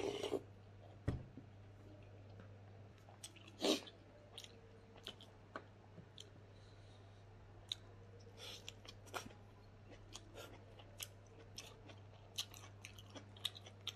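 Close-up sounds of a person eating with his hands: chewing and wet mouth smacks with scattered short crunches and clicks. A slurp from a soup bowl right at the start, and a steady low hum underneath throughout.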